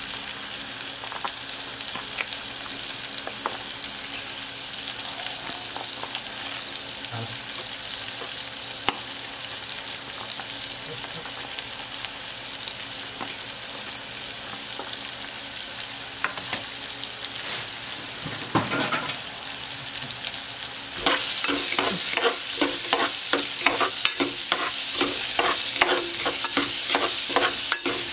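Chopped red onions and garlic sizzling in hot oil in an aluminium pot, a steady hiss with scattered crackles. About 21 seconds in, a metal spoon starts stirring them, scraping the pot in repeated strokes and making the sizzle louder.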